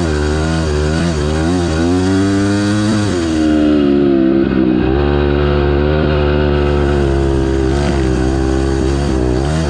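Single-cylinder four-stroke dirt bike engine (2006 Honda CRF250R) revving up and down as it is ridden, its pitch climbing and dropping again and again. It holds its highest, loudest pull from about three and a half to six and a half seconds in.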